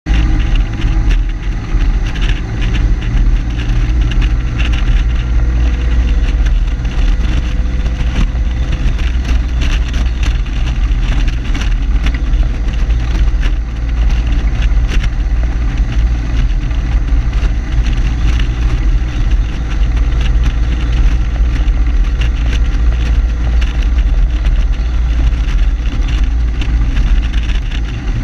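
Jeepster cruising on a highway, heard from a hood-mounted camera: steady engine and road noise under heavy low wind rumble and buffeting on the microphone.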